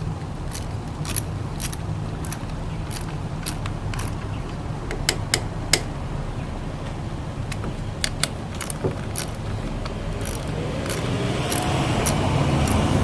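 Scion tC's 2AZ-FE four-cylinder engine running with a steady low hum, with sharp clicks at irregular times over it. Near the end a rising sound swells as the engine is revved.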